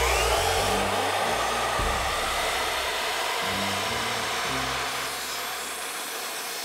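Makita sliding compound miter saw spinning up with a rising whine, then running steadily as its blade is pushed down through a pine plank.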